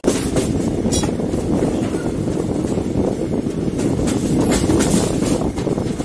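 Passenger train coaches running along the track, heard from inside a coach at the open door: a steady rumble of wheels on rails, with a few short sharper rattles.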